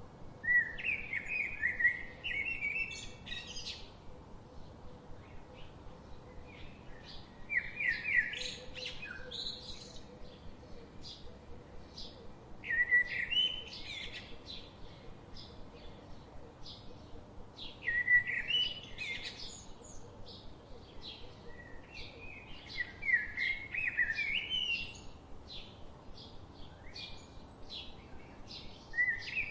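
A songbird singing: a quick, varied song phrase of two to three seconds repeated about every five to six seconds, with fainter short chirps between phrases.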